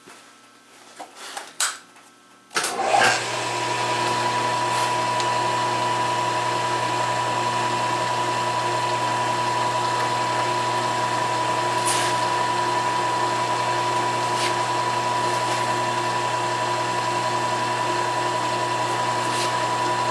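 A few light clicks, then about two and a half seconds in a milling machine's spindle is switched on and runs steadily with a constant high whine over a low hum, ready to cut a small corner notch in the hinge parts.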